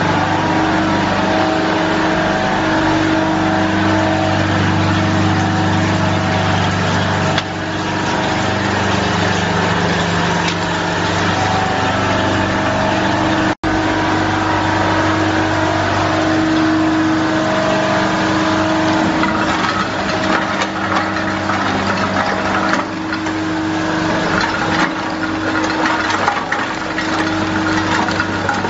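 Industrial tube ice machine running with a steady mechanical hum and whine. In the second half a rattling clatter of cut ice tubes dropping onto the pile joins it.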